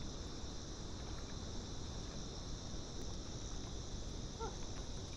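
Insects buzzing in a steady high drone over a low, even rushing noise.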